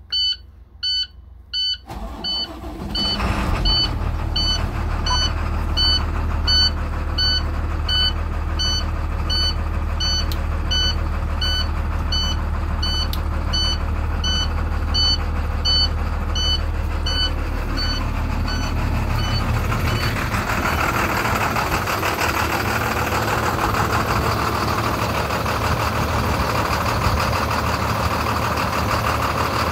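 An IC school bus engine cold-started in snow: it cranks and catches about two seconds in, then idles steadily. An electronic warning beep repeats rapidly over the idle until about eighteen seconds in, and a louder rushing noise joins about twenty seconds in.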